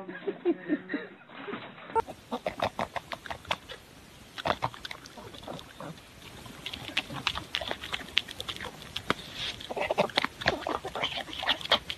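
A pug eating food held out in a person's fingers: quick, irregular smacking and chomping clicks that come in clusters.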